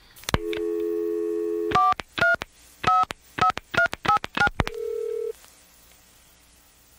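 Telephone handset picked up with a click, a steady dial tone, then seven touch-tone digits dialed in quick succession, and a brief burst of ringback tone as the call goes through.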